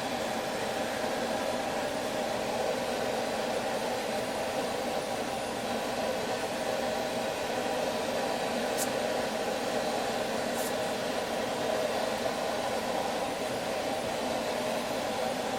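Forge running with a steady rushing roar of its air blast, with two faint ticks near the middle.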